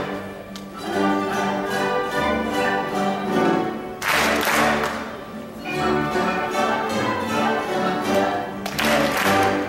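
Orchestra of marimbas and bowed strings playing a Mexican piece: mallet notes on the wooden marimba over sustained violin lines, with loud full swells about four seconds in and again near the end.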